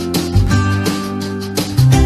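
Background music: upbeat strummed acoustic guitar.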